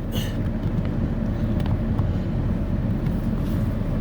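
A steady low rumble of a vehicle engine running, with a few faint clicks from parts being handled.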